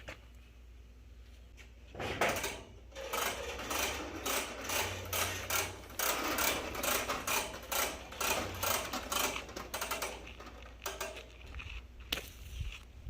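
Small air compressor running to inflate a freshly plugged car tire, a fast, even rattling chatter that starts about two seconds in and stops about ten seconds in.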